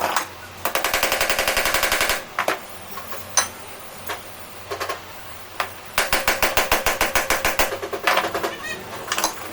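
Impact wrench hammering in two rattling bursts of about a second and a half each, one near the start and one about six seconds in. This is the kind of tool used to undo the fasteners of a 48 V BLDC hub motor. A few separate clicks fall between the bursts.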